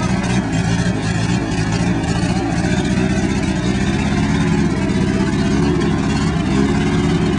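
Willys Jeep engine running steadily at low revs as the Jeep pulls slowly through mud.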